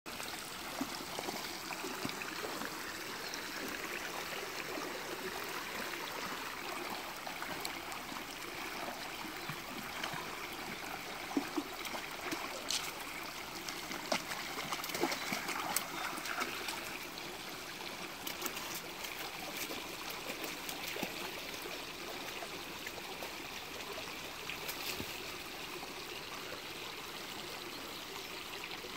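A small shallow creek trickling and flowing steadily, with occasional sharp splashes and clicks from golden retrievers wading in it, most of them around the middle.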